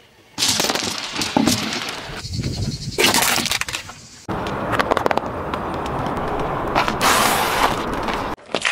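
A car tyre rolling over and crushing small objects on asphalt (glass marbles, a drink pouch, dry crackers), with crackling, cracking and crunching. The sound comes in several short cuts that start and stop abruptly.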